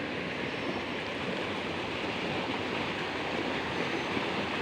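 Steady rushing of flowing water, an even noise without pauses or rhythm.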